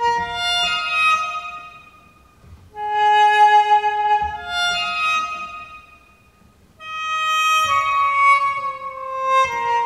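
Korean saenghwang (mouth organ) playing slow, held notes, mostly sounded in octave pairs, in three phrases with short breaths between them; the last phrase steps down in pitch.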